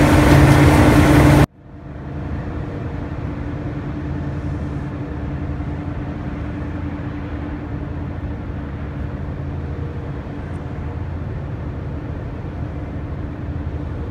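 Loud sugar-mill machinery running with a steady hum while sugar pours down a steel chute; it cuts off abruptly about a second and a half in. A quieter, steady machine hum follows.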